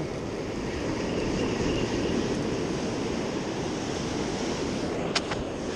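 Surf washing onto a sandy beach, a steady rushing wash of breaking waves, with two sharp clicks close together about five seconds in.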